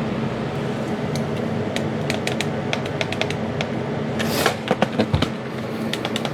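Heat gun running with a steady blowing hum, used to blow out resin lacing. Scattered light clicks and taps sit over it, with a short whoosh about four seconds in.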